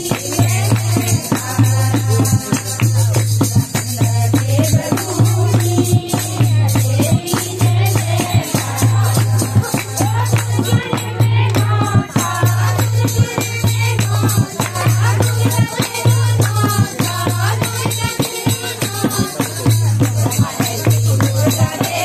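A group of women singing a devotional bhajan in unison to a steady dholak beat, with hand clapping and a rattling hand percussion.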